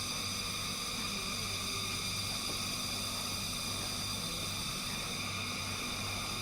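Steady hiss with a low hum beneath it, unchanging throughout, with no distinct events.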